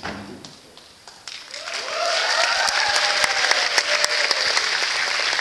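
An audience applauding in a hall, swelling up about a second and a half in after a brief lull, with whooping cheers over the clapping.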